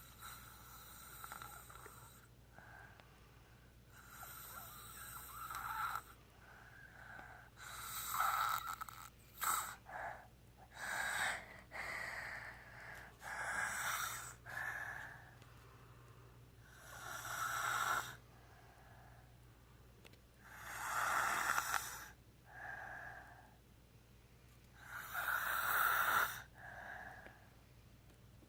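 Snoring: a series of noisy breaths, each a second or two long, coming about every three to four seconds, with a few shorter, quicker breaths bunched together around the middle.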